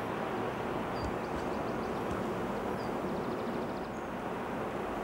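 Steady low rumble and rushing of a loaded inland cargo ship's engine and the water around it as the ship passes. Two faint, rapid high trills from a small bird come through, about a second in and again around three seconds.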